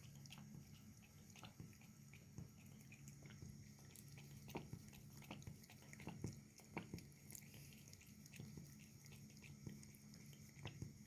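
Faint, irregular small clicks and ticks over a steady low hum, a few of them sharper around the middle.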